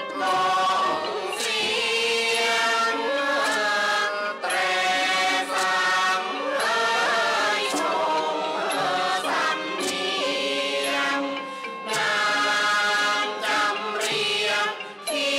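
Thai classical singers chanting a khon song in chorus, over a piphat ensemble with regular percussion strokes.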